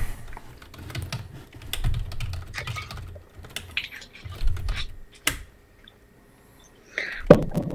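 Typing on a computer keyboard: irregular runs of key clicks, pausing briefly past the middle, with a louder knock near the end.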